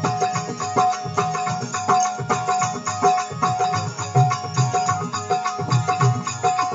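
Instrumental passage of Indian devotional folk music (desi bhajan): a steady hand-drum beat under a held tone and instrumental accompaniment, with no singing.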